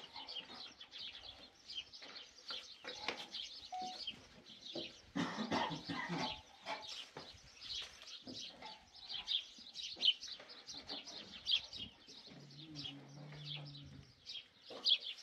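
Birds chirping over and over in short, high calls, with some clucking. A low, steady call lasts about a second and a half near the end.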